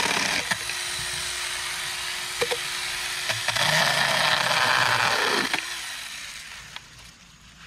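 Saker mini battery chainsaw with a 4-inch bar, its electric motor running with a steady whine and cutting through branches: a harsh cutting noise at the start, then a louder cut from about three and a half seconds in. The trigger is released at about five and a half seconds and the motor winds down to a stop.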